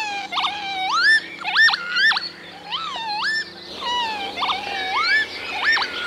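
Northern lapwing male's display-flight song: a series of wheezy, slurred whistles, each dipping and then sweeping sharply upward, in repeated phrases, with an almost artificial, alarm-like quality.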